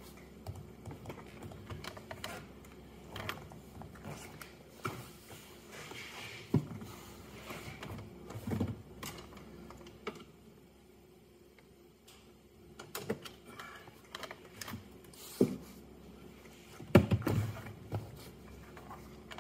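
Hands working on a car's plastic center console with a screwdriver: scattered clicks, taps and knocks of plastic trim and tool, with a louder cluster of knocks near the end.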